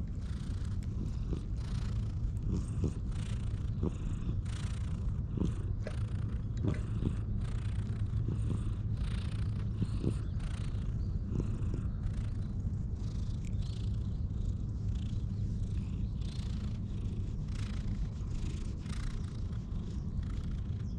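Calico cat purring steadily while it is stroked on the head and chin, with soft, repeated rustling from the hand moving over its fur.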